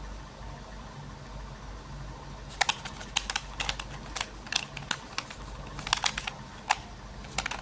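Plastic Bubble Tape gum container handled and prised open by hand. About two and a half seconds in, a run of irregular sharp clicks and crackles begins, from plastic and paper seal being worked, and goes on until near the end.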